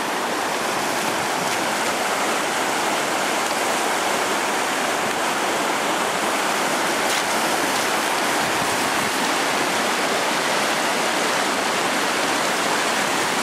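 Floodwater overflowing a breached river levee and rushing across flooded rice paddies: a steady, loud churning of fast-moving water.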